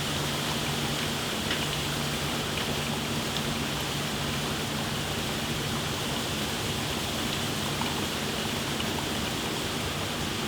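Steady rushing of a flowing stream of liquid, even throughout, with a faint low hum underneath.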